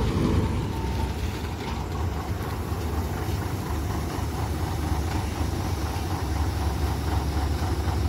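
Combine harvester's diesel engine running with a steady low rumble as the machine drives slowly along the road.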